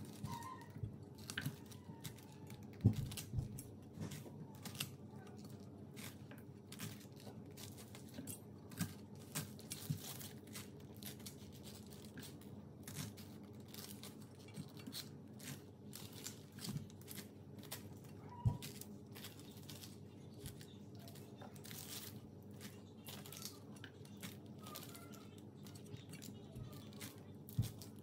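Chef's knife slicing through a peeled pineapple on a wooden cutting board: faint, repeated crunching cuts through the fruit, with a few sharper knocks of the blade on the board.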